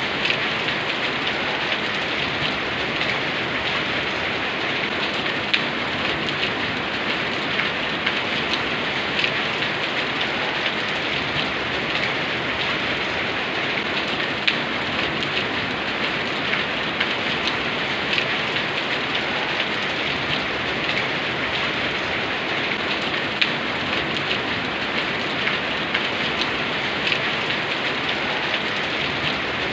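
Steady rain falling, an even hiss dotted with the sharp ticks of individual drops hitting a surface.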